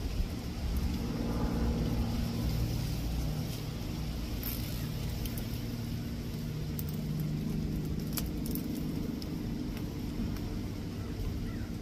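A steady low rumble like distant traffic, with a few faint sharp clicks from handling the ties and pruners.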